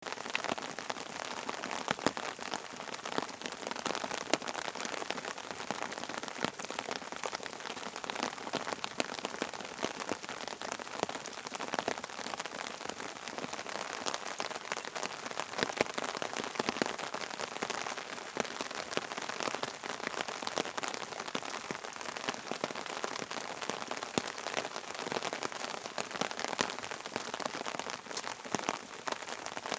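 Steady rain falling, with a dense scatter of sharp drop ticks throughout.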